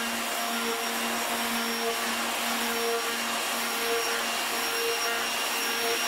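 Electric random orbital sander running steadily with a steady motor whine, its pad sanding down filler on a fibreglass-and-epoxy rudder.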